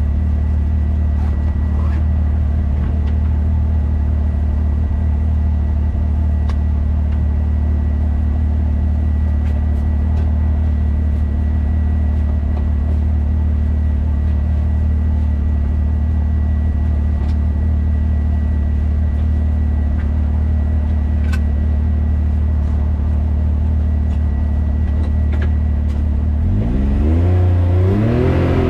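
Can-Am Maverick X3 Turbo RR's engine running steadily, then revving up and down near the end with rising and falling pitch.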